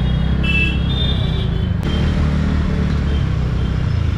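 Busy road traffic: a steady low rumble of engines and tyres, with a few brief high-pitched tones about half a second to a second and a half in and a sharp click just before two seconds.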